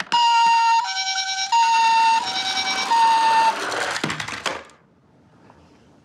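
Toy Himedic ambulance's electronic siren playing the Japanese two-tone hi-lo ambulance call, high and low notes alternating about every 0.7 s (high-low-high-low-high). It cuts off about three and a half seconds in, followed by about a second of scratchy noise.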